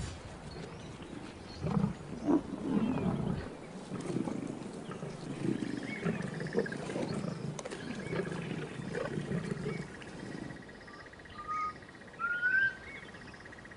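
Lions growling in repeated low, rough bursts for about eight seconds, then falling quiet. In the quieter end, a few short rising bird whistles and a steady high buzz.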